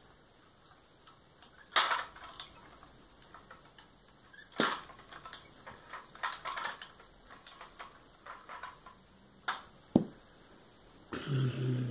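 Scattered sharp plastic clicks and knocks from a toy fire engine as its ladder is raised and swung round. Near the end a man starts imitating an engine with his voice.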